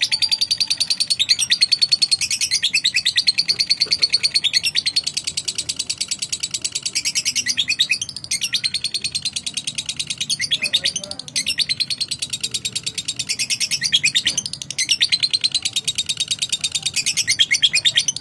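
Lovebird chattering in long runs of rapid, high-pitched chirps, many to the second, that break off briefly every few seconds. This is the kind of call lovebird keepers play to get another lovebird to answer.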